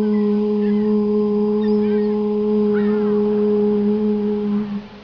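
A woman chanting a long, held 'U' ('oo') vowel on one steady pitch: the meditation's U sound, voiced to resonate through the body. It fades out near the end.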